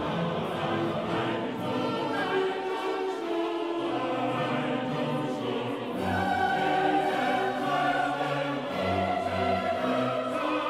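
Classical choral music with orchestra: voices hold long notes over the instruments, swelling somewhat louder about six seconds in.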